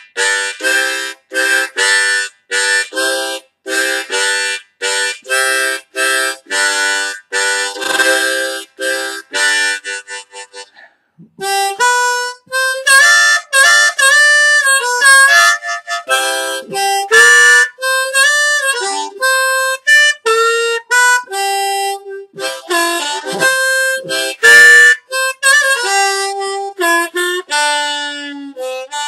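Seydel diatonic harmonica with a plastic comb being played. It opens with short rhythmic chords about twice a second for some ten seconds, then moves to a melody of single notes with bent notes dipping in pitch.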